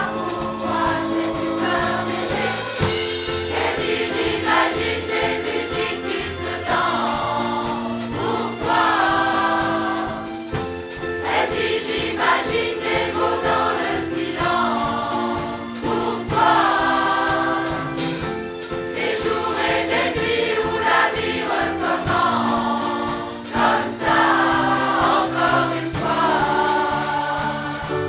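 Large mixed choir of men and women singing an upbeat song over an accompaniment with a steady beat.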